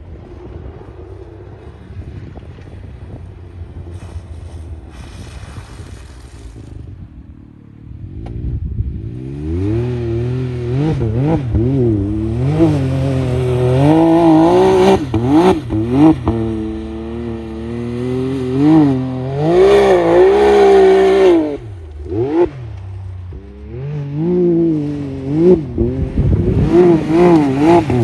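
2022 Can-Am Maverick X3's turbocharged three-cylinder engine through a Yoshimura aftermarket exhaust. It is quieter for the first eight seconds, then loud, revving up and down over and over as the machine spins donuts on snow.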